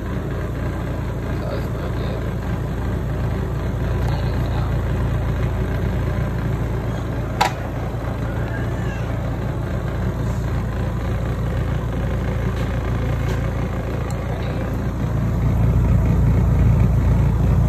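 FRIFER portable twin-tub washer's motor running with a steady low hum, louder from about fifteen seconds in. A single sharp plastic click about seven seconds in as the lint filter is snapped back onto the tub wall.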